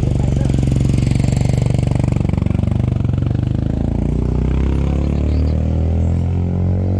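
A motor vehicle engine running close by, steady, with small shifts in pitch around the middle.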